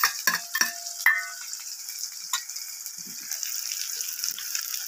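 Sliced onions frying in hot mustard oil in a kadhai, with a steady high sizzle and a few sharp clinks in the first second or so.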